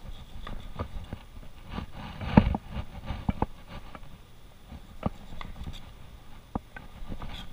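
Butcher's knife clicking and knocking against a plastic cutting board as fat is trimmed from beef New York strip steaks, with a cluster of louder knocks about two and a half seconds in and a few single clicks later.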